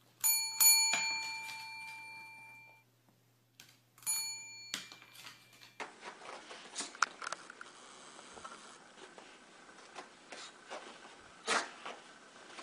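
A desk service bell rung by a dog: three quick dings that ring on and fade over about two seconds, then two more dings about four seconds in. After that comes a quieter stretch of soft scuffs and taps, with one louder tap near the end.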